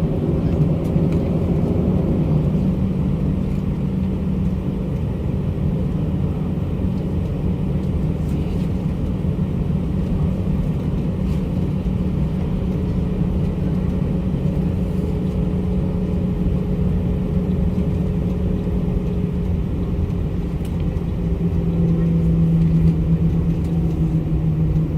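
Passenger airliner cabin noise: a steady, loud drone of engines and rushing air, with a low hum that grows stronger near the end.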